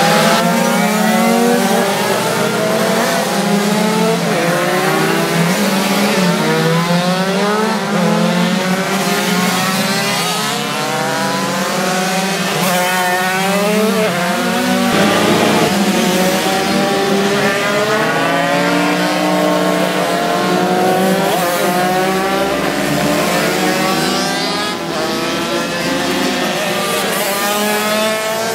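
A pack of 50cc two-stroke racing moped engines running hard, several at once, their high-pitched whine rising and falling as the riders ease off and open the throttle through the corners.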